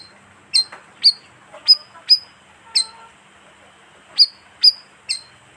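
Bayeman bird lure call: short, sharp chirps, each dropping quickly in pitch, repeated about nine times at roughly half-second intervals, with a pause of about a second midway.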